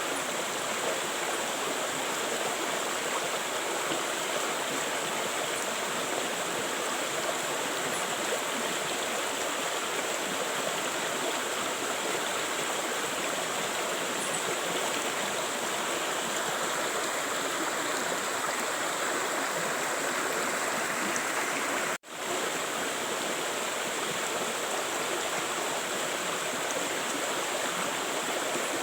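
River water flowing, a steady continuous rushing. It drops out for an instant about 22 seconds in.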